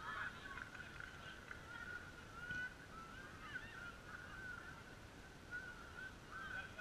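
Faint, distant children's shouts and calls overlapping across a football pitch during play, with no clear words.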